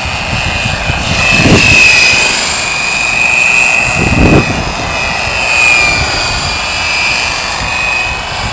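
A Lite Machines Corona fixed-pitch RC helicopter in flight on its Mega 16/15/4 brushless electric motor, giving a high steady whine that wavers slightly in pitch. Two brief low whooshes come about a second and a half in and again about four seconds in.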